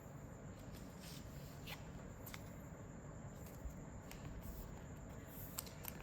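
Faint handling of trading cards: a few soft, brief clicks and rustles over a steady low room hum.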